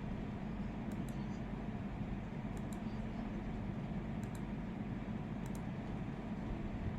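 A steady low hum with faint, sharp clicks, often in pairs, about every second and a half.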